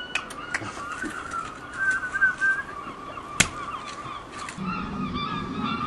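Garden birds chirping, over a few sharp clicks of a hoe striking the soil, the loudest about three and a half seconds in. A low steady hum comes in near the end.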